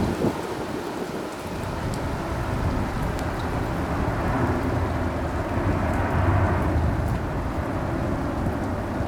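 Heavy rain with gusting wind buffeting the microphone: a steady hiss over a low, irregular rumble that swells slightly midway.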